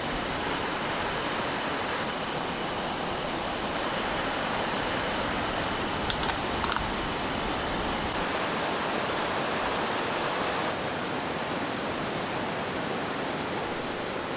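Mountain stream rushing steadily, its flow strong and loud from the rainy-season swell. A few light clicks sound about six seconds in.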